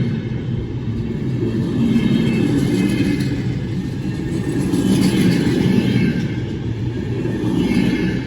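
A train rumbling through a station, a heavy low rumble with a faint high whine above it.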